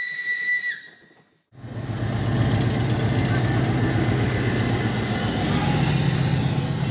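A steam locomotive's whistle sounds a steady high note that stops under a second in. After a short gap, an SM42 diesel locomotive's engine runs loudly and steadily close by: a deep, even hum with a faint whine slowly rising in pitch.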